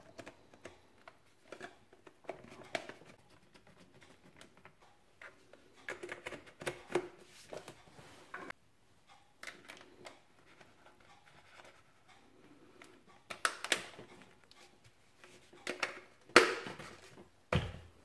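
Plastic housing parts of a GHD hair dryer being handled and clicked back together: scattered small clicks and knocks, with a few louder knocks near the end.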